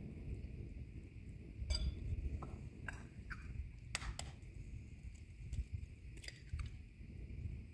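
Bowls clinking and eggs being tapped and cracked on the rim of a glass mixing bowl: a handful of short sharp clicks spread over the seconds, over a low steady rumble.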